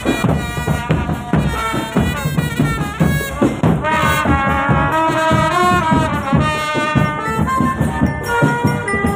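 Indonesian marching drum band playing: a steady run of drum strokes with a brass melody over it, the melody fullest from about four seconds in.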